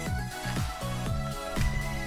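Electronic background music with a steady beat of deep, pitch-dropping kick drums under held bass and chord tones.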